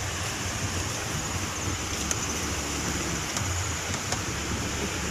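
Shallow river running fast over a rocky bed, a steady rushing hiss, with a low rumble of wind on the microphone.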